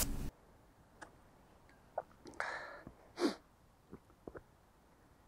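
Quiet outdoor air with a few faint clicks, and one short breathy sniff about three seconds in.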